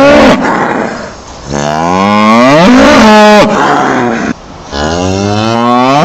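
Cow mooing: three long, loud moos, each rising in pitch and dropping away at the end.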